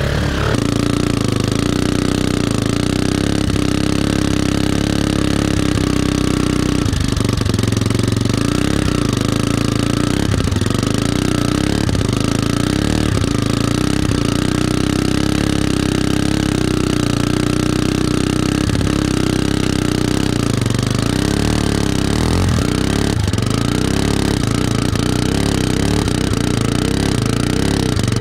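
Homemade trike motorcycle's engine running as it is ridden through grass and mud, its pitch rising and falling with the throttle several times in the second half.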